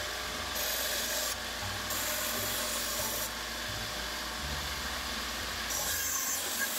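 Skil 3386 benchtop band saw running, its blade cutting through small pieces of scrap wood three times in short spells of sawing noise over the steady running sound of the machine.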